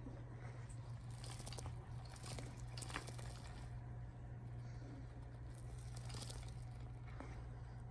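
British Longhair kittens playing: scattered rustling, crinkling and soft clicks from their scuffling, over a steady low hum.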